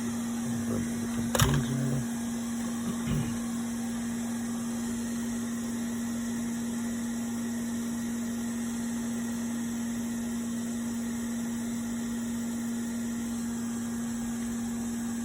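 Hot air rework station blowing steadily: an even airy hiss with a constant hum. A short click about a second and a half in.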